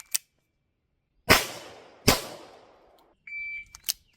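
Handgun fired twice, under a second apart, as a double tap from the draw, each shot followed by a fading echo. A steady electronic beep from a shot timer comes a little after 3 s, followed by two short clicks.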